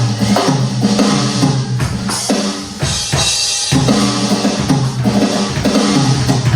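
Drum kit, most likely the NUX DM-7X electronic kit, played along to a backing track with a stepping bass line. The bass drops out briefly about three seconds in while the cymbals carry on.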